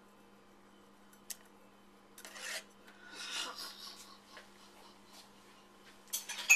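A metal spoon stirring and scraping through thick, sticky green pudding in a metal bowl: a few rasping strokes starting about two seconds in, ending with a sudden louder knock near the end.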